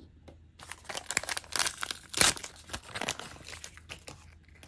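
A small Mini Brands blind bag being torn open and crinkled by hand: a dense run of crackling that starts about half a second in, is loudest around the middle, and thins to a few light handling sounds near the end.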